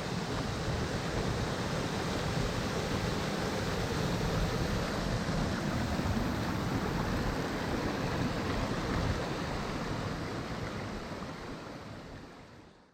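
Steady rushing of a waterfall on a mountain river, an even noise with no breaks, fading out over the last couple of seconds.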